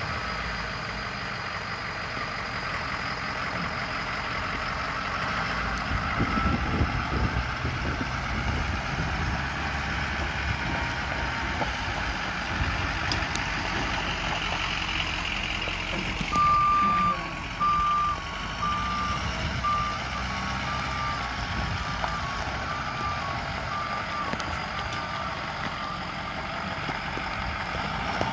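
Ford F-450 Super Duty bucket truck's engine running as the truck is driven, with a backup alarm beeping a little over once a second from about halfway through, loud at first and then fainter.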